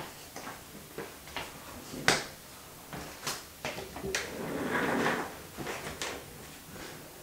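A string of sharp knocks and clicks from someone moving about a small room and handling things; the loudest knock comes about two seconds in, and a short rustling shuffle follows near the end.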